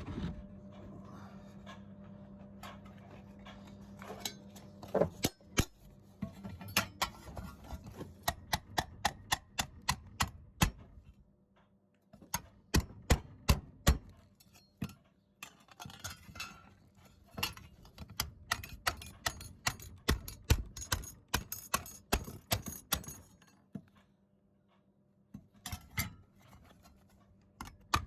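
Repeated sharp metallic knocks and taps on welded steel, a few a second in irregular runs with short pauses, as the practice weld is hit to test it. A steady low hum runs underneath at first and stops about five seconds in.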